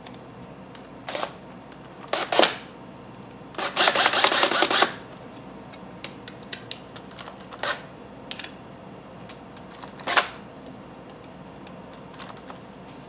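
Cordless drill with a screwdriver bit driving screws into a plastic mount in short bursts, with one longer run of about a second about four seconds in, and small handling clicks between.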